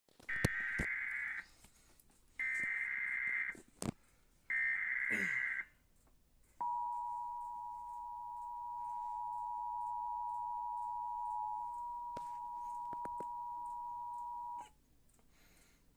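Emergency Alert System header: three bursts of screeching digital SAME data, each about a second long, encoding a flash flood warning. They are followed by the two-tone EAS attention signal, held steady for about eight seconds, with a few sharp clicks along the way.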